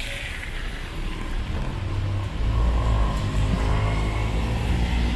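A motor vehicle's engine rumbling as it passes close by, swelling about two seconds in, over a steady hiss of tyres and traffic on wet pavement.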